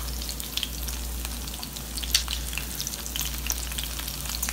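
Potato-starch-coated chicken pieces frying in hot vegetable and sesame oil in a cast-iron skillet: steady sizzling with a dense crackle of spitting pops, one sharper pop about two seconds in.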